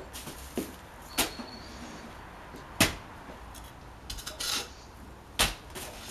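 A large knife striking hard into a giant pumpkin: four sharp, uneven chopping whacks, the third the loudest, with a short rasp between the last two as the blade cuts through the rind.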